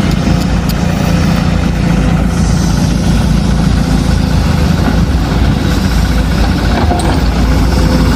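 Excavator's diesel engine running steadily, with a constant low hum; a higher hiss joins about two seconds in.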